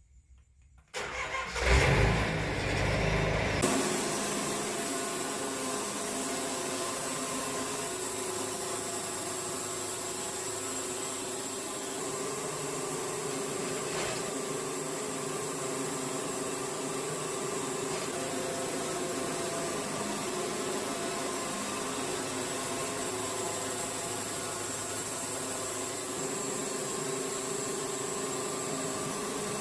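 Wood-Mizer LT70 sawmill engine cranking and catching about a second in, then settling into steady running.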